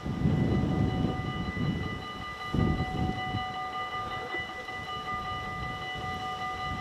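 Dutch level-crossing warning bell ringing steadily as the crossing closes for an approaching train, the red lights flashing and the barrier arms coming down. A low rumble sits under it, loudest in the first three seconds.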